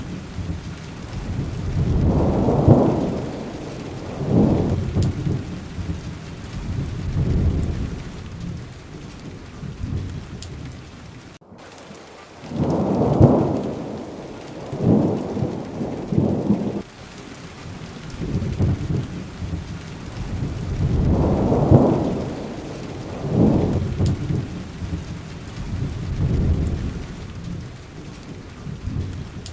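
Steady rain with rolling thunder, the rumbles swelling and fading again and again. The sound cuts out for a moment about eleven seconds in.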